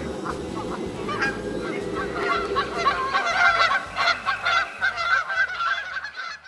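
A flock of geese honking: many short, overlapping calls, busiest in the middle and dropping away near the end.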